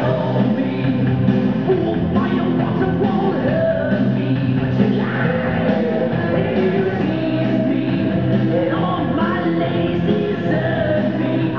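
Loud rock music with singing, playing without a break.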